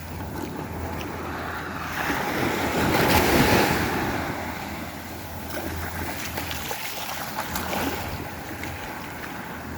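Sea waves breaking and washing up the beach, one surge swelling loudest about three seconds in, with wind rumbling on the microphone.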